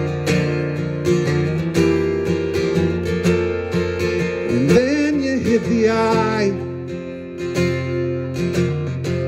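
Acoustic guitar strummed and picked in a steady song accompaniment, with a man's voice singing a drawn-out, wavering line about halfway through.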